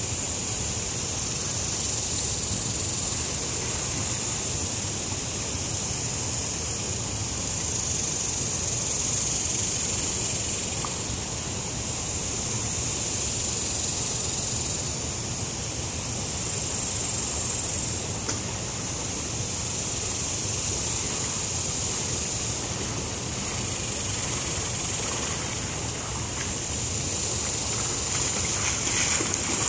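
A chorus of cicadas droning high and steady, swelling and fading every few seconds, over the even rush of a shallow river.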